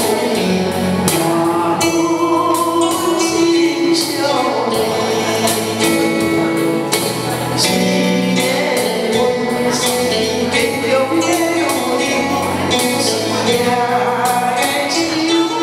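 A woman singing into a handheld microphone, accompanied by an electronic keyboard with a steady programmed beat.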